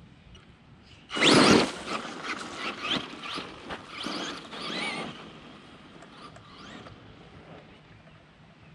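Radio-controlled truck driving over dirt: its motor whines in short rises and falls as the throttle is worked, loudest from about a second in, then fading away after about five seconds.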